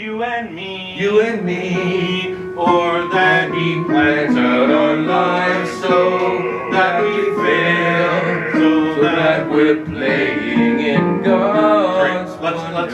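Men's voices singing a song together, accompanied by an electric keyboard.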